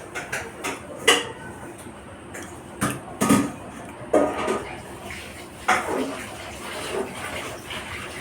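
Eating sounds: watery soaked rice (panta bhat) being mixed and eaten by hand from a plate, with irregular wet clicks and smacks, some louder than others.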